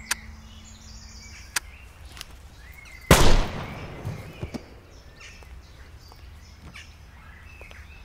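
A single handgun shot about three seconds in, loud and sudden, with a tail that dies away over about half a second. It comes after two short sharp clicks.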